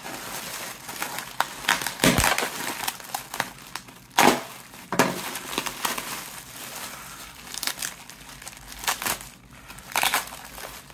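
Plastic wrapping around a phone crinkling and crackling in irregular bursts as it is cut open with a utility knife and pulled off by hand, with a few sharper crackles.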